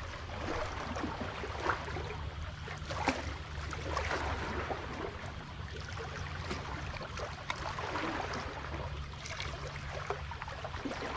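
Seawater sloshing and lapping irregularly among concrete tetrapod blocks, with scattered small splashes and clicks over a steady low hum.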